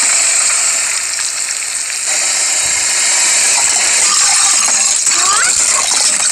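Car tyre rolling over and crushing slime-filled rubber gloves and then plastic pots, with crackling and rattling over a steady hiss.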